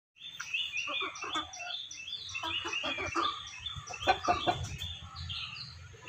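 Chickens clucking amid a run of quick, high, falling chirps that goes on throughout, with a low rumble underneath.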